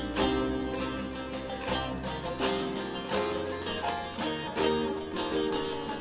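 Instrumental Turkish folk music on long-necked bağlama-family lutes (bağlama, cura, dede sazı): a fast plucked melody with quick strummed attacks, over sustained low keyboard bass notes that change every second or so.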